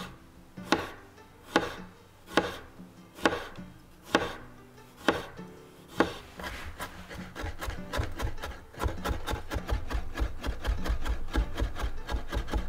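Chef's knife cutting garlic cloves on a cutting board: separate slicing strokes about once a second, then, about halfway through, fast rapid chopping as the garlic is minced finely.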